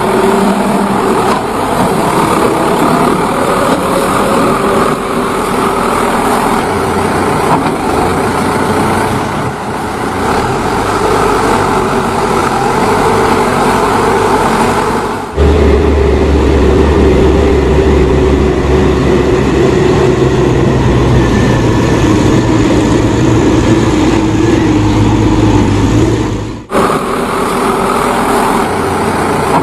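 Steady, loud motor running noise in three spliced stretches, changing abruptly about halfway through and again near the end.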